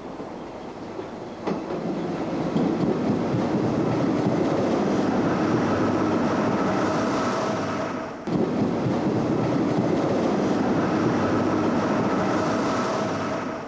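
Berlin S-Bahn electric train running into the station and along the platform, with wheel and rail noise and a steady whine over it. The sound builds over the first couple of seconds as the train comes close, breaks off briefly a little past halfway, and fades near the end.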